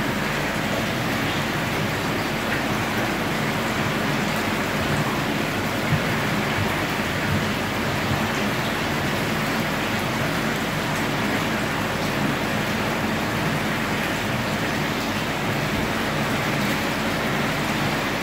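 Steady splashing rush of water churning at the surface of a marine fish holding tank, with a faint low hum underneath.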